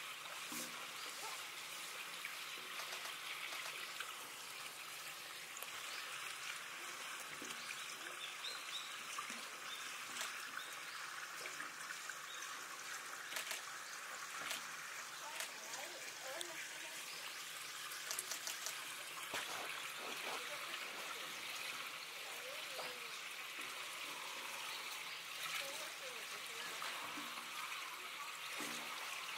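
Steady trickle of running water, like a small stream or inflow feeding an otter pool.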